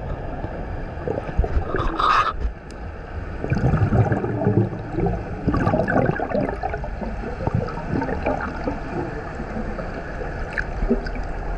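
Underwater sound in a swimming pool, heard through a GoPro's waterproof housing: a muffled, steady rush of water, with a louder stretch of bubbling gurgles in the middle as air bubbles stream past the camera.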